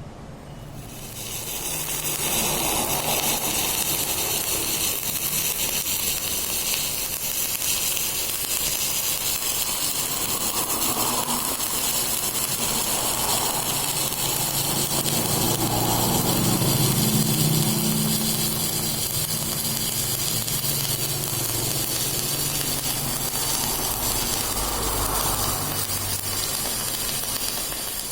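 Electric arc welding: a steady, high hissing noise of the arc laying a continuous bead, building up about a second in.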